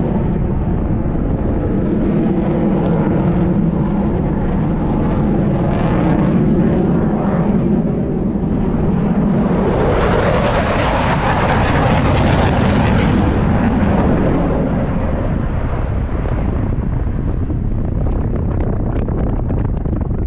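Aircraft engines in flight: a loud steady drone with a pitched hum, swelling into a louder rushing pass from about ten to fourteen seconds in as an aircraft goes by, then easing back.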